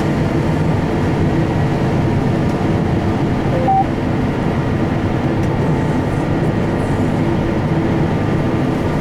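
Combine harvester running steadily under load while harvesting beans, a dense engine and threshing drone heard from inside the cab. A short two-note electronic beep sounds about four seconds in.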